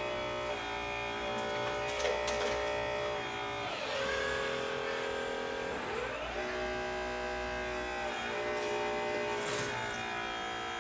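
Multi-tone electric whine of a scale RC hydraulic excavator's pump motor. Its pitch sags and recovers several times as the hydraulics take load, with brief hissy flecks twice.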